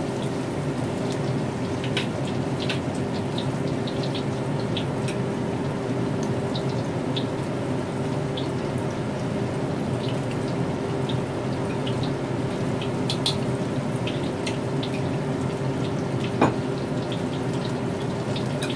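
Starch-coated chicken pieces deep-frying in hot oil in a wok: a steady sizzle with scattered pops and crackles, and one louder click near the end.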